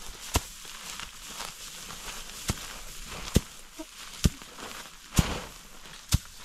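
A wooden stick beating a pile of fresh-cut green fodder on a plastic tarp: a sharp whack about once a second, with a steady rustle of the fodder between strikes.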